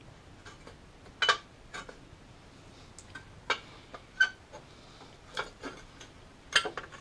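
Irregular light clicks and knocks of plastic and metal parts being handled and fitted by hand in a car's engine bay, the loudest about a second in and near the end.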